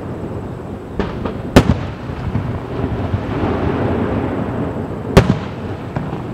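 Aerial firework shells bursting: two loud booms about three and a half seconds apart, with a few smaller pops and a steady low rumble between them.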